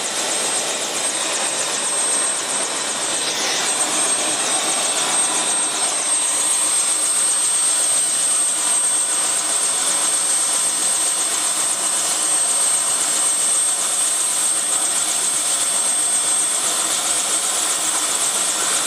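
Light turbine helicopter with a two-bladed main rotor running on the ground, rotor turning: a steady high turbine whine over the constant rush of the rotor.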